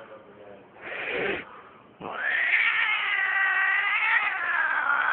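Domestic cat caterwauling: a short harsh sound about a second in, then from about two seconds a long, drawn-out yowl held at a steady pitch.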